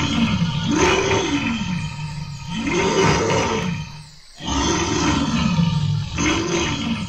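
A big cat's roar, dubbed in as a sound effect in place of the bat's own call. Two long, rough roars, each rising and falling in pitch, with a short break about four seconds in.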